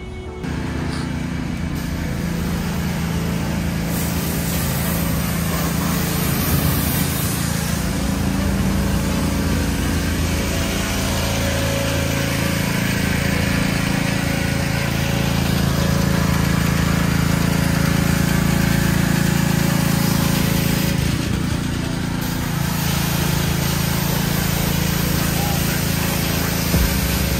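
Pressure washer running steadily as water is sprayed onto a car's body: a constant machine hum under the hiss of the spray. It starts about half a second in.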